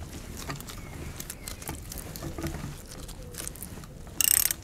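Small irregular clicks and taps as a new oil filter is fitted into the recessed filter housing of a BMW K1100LT engine with a cup spanner, with a brief louder rasp about four seconds in.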